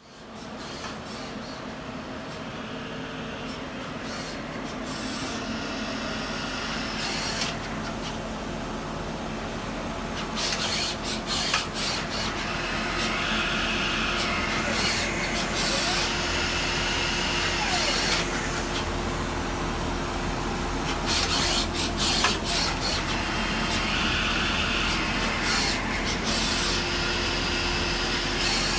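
Citizen L20E Swiss-type CNC lathe running a machining cycle: a steady motor hum with a constant tone, broken every few seconds by stretches of hissing and rasping noise.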